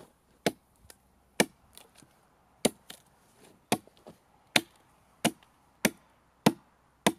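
An axe chopping into a freshly peeled log sawhorse leg: nine sharp strikes, roughly one a second and coming a little quicker towards the end, with wood chips splitting off.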